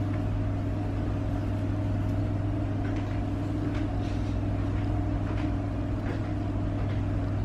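Steady low mechanical hum with a few faint taps.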